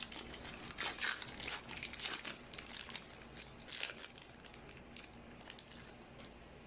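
Foil booster pack wrapper crinkling and tearing open in the hands as a Pokémon card pack is opened: irregular crackles over the first few seconds that then die down.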